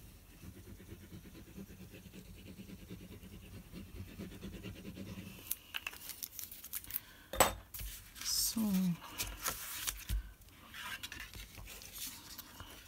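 Adhesive tape runner rolled along card stock, a faint, even rattle for about five seconds. Then clicks and a sharp tap as it is put down, followed by card and paper being handled and slid together.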